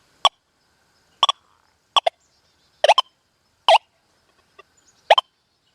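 Metal detector in its Goldfield program giving short target tones as the coil is swept back and forth over a target. There are about six brief beeps, some doubled, roughly one per sweep.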